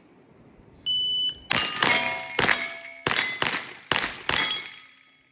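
Electronic shot timer beeps once for the start, then a pistol-caliber carbine fires seven quick shots over about three seconds, with steel targets ringing after the hits.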